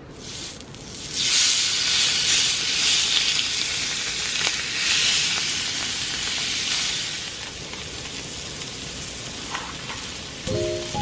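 Duck breast sizzling on a hot ridged grill pan: the hiss starts as the meat is laid down, swells loud within about a second, and eases off gradually in the second half.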